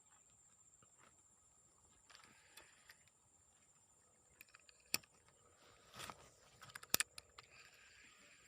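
Faint handling noises: a few sharp clicks and knocks, the loudest about five, six and seven seconds in, over a quiet background with a steady high-pitched hiss.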